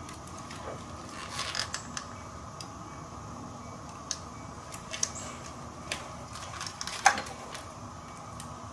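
Plastic ignition coil connectors and wiring being handled and probed with a multimeter test lead: scattered light clicks and taps, with the loudest about seven seconds in.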